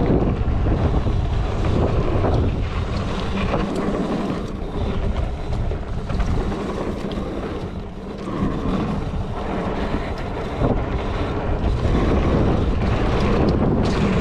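Wind buffeting the camera microphone on a mountain bike speeding down a dirt flow trail, over a steady rumble and rattle from the bike rolling over the ground.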